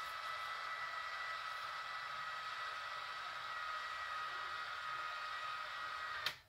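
Motorized honeycomb (cellular) shade's motor running with a steady whine as it raises the top rail. It stops with a click about six seconds in, as the rail reaches the top of its travel.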